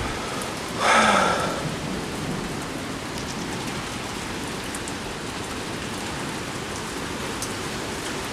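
Heavy thunderstorm rain pouring steadily, with a brief louder rush about a second in.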